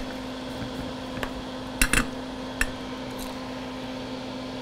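Small wire cutters snipping the tinned ends of thin receiver wires: a few sharp clicks, the loudest a quick pair just before two seconds in.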